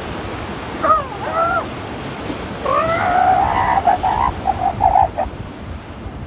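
Young male elephant seals sparring and calling: two short wavering calls about a second in, then a longer call about three seconds in that breaks into a quick run of short pulses. Steady surf wash underneath.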